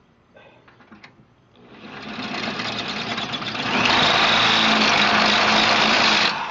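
Corded 1/2-inch variable-speed hammer drill, used as a plain drill, boring through steel angle iron with a high-speed-steel step bit. The motor spins up about a second and a half in, gets louder about two seconds later, and cuts out near the end, beginning to spin down.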